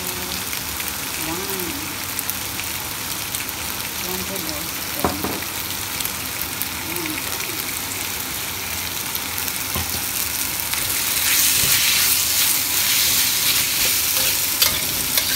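Sliced pork, green pepper and onion sizzling in a hot wok while a spatula stirs them, with a few sharp scrapes and knocks of the spatula on the pan. The sizzling grows louder about eleven seconds in.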